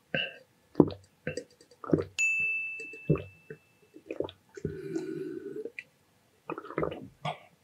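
Close-up eating sounds: chewing, with many short wet smacks and clicks from the mouth. About two seconds in, a single clear ding rings out and fades over a couple of seconds.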